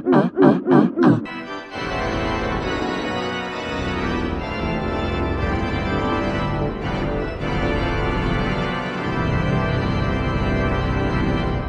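A quick run of short, warbling cartoon sound-effect pulses, about four a second, that stops about a second in. Then organ music plays steadily as an ending theme.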